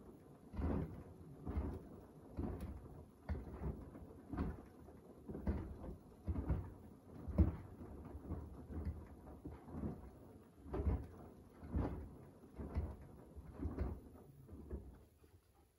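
Beko WDR7543121S washer-dryer drum tumbling a wash load: sudsy water and laundry slosh and thud about once a second, stopping near the end as the drum pauses.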